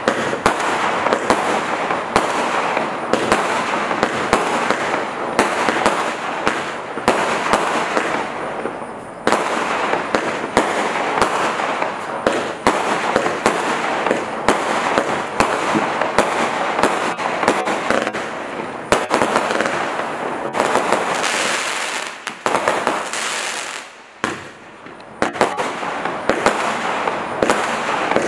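Standard Fireworks Gladiator cake firing, a rapid run of sharp launches and bursts over a continuous hiss, with a short lull a little past twenty seconds in.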